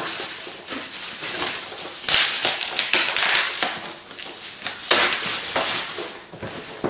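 Clear plastic shrink-wrap crinkling and tearing as it is peeled by hand off a cardboard board-game box. It gets louder about two seconds in and again about five seconds in.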